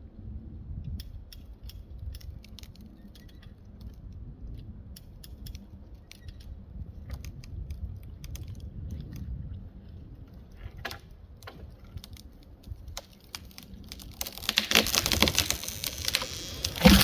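A tree falling: scattered sharp cracks and snaps of the wood giving way, then about 14 seconds in a loud rushing crash lasting a couple of seconds, ending in a heavy thud.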